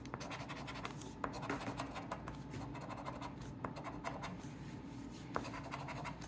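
A round scratcher coin scraping the coating off a scratch-off lottery ticket in quick, repeated strokes, with a few sharper clicks.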